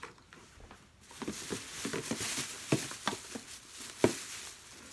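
Rummaging through shopping haul items: a steady rustling with a run of light knocks and clatters, the two sharpest about three and four seconds in, as a plastic cookie container is picked up.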